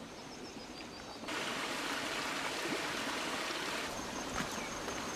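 Steady outdoor background hiss that gets a little louder just over a second in, with a faint thin high tone joining late on.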